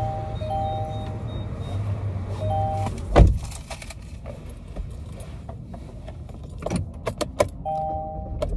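A car door shuts with a single thump about three seconds in. A few sharp clicks and a jangle of keys follow as the driver settles in. A two-note electronic tone sounds several times over a low, steady hum.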